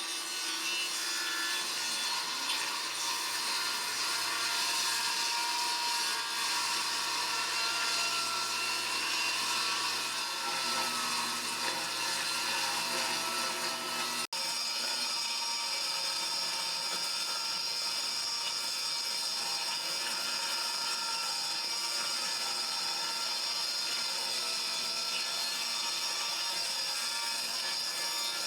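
Power saw ripping a long wooden board lengthwise along a marked line, cutting steadily throughout.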